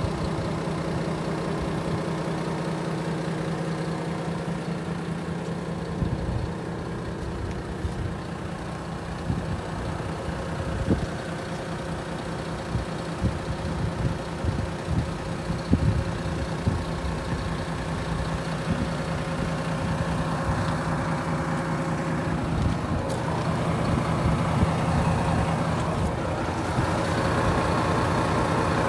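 Volvo FM450 tractor unit's 13-litre six-cylinder diesel idling steadily, with irregular low thumps from about six seconds in.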